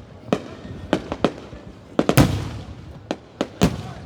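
Fireworks bursting overhead: about ten sharp bangs at irregular intervals, the two loudest a little after two seconds in and near the end, each followed by a rolling echo.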